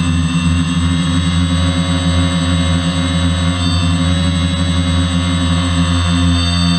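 DJI F450 quadcopter's motors and propellers running with a steady multi-tone buzz and whine, shifting slightly in pitch near the end.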